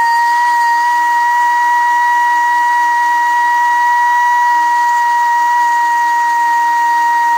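Die grinder running with a steady, unbroken whine as its bit grinds the rough cut edge of a metal fuel-line bracket clamped in a vise.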